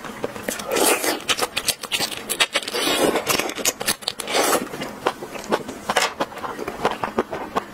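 Close-miked eating of a raw prawn: many irregular crackling and scraping clicks from the shell, with louder wet biting and chewing sounds about a second in, around three seconds and mid-way.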